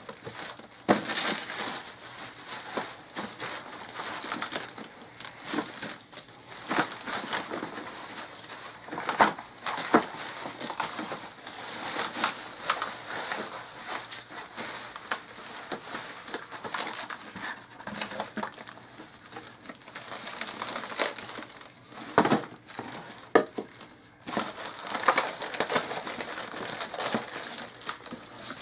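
Coffeemaker packaging being handled and pulled out of its cardboard box: plastic and paper crinkling and rustling, with frequent knocks and scrapes against the box.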